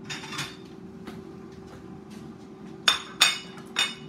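Crockery handling: a soft clatter of dishes as a plate is taken from a cupboard, then three sharp, ringing clinks of a plate and kitchen knife knocking against the counter and cutting board near the end.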